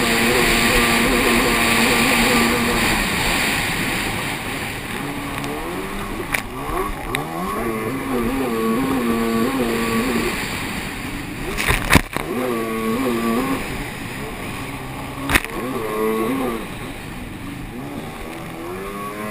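Racing jet ski engine running at high throttle, easing off about three seconds in, winding back up and holding, then cut and blipped in short bursts in the second half. A few sharp knocks and a steady rush of wind and water run under it.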